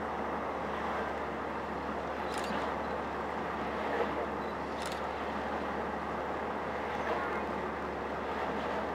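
Glass-bottom tour boat's engine running steadily, a low hum under an even wash of noise, with two faint clicks.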